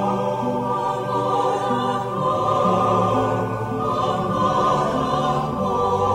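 Background music: sustained choir-like voices holding chords over a bass line that steps from note to note.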